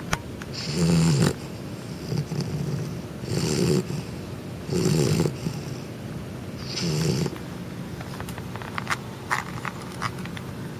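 Two-month-old Chow Chow puppy snoring loudly in its sleep, a rasping, rattling snore on each breath about every one and a half to two seconds. Near the end the snoring fades and a few small clicks are heard.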